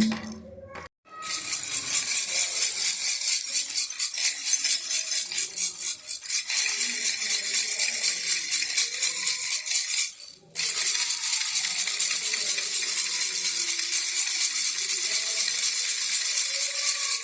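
Baby rattle shaken steadily in a fast, continuous rattle, stopping briefly about a second in and again about ten seconds in.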